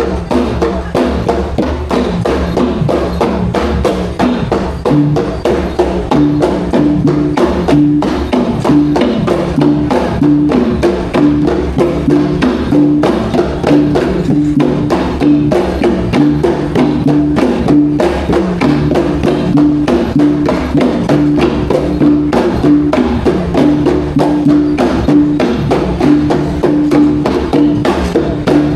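Traditional Borneo ensemble music: Iban gendang pampat drums played in fast, steady strokes under a short sape melody repeated over and over.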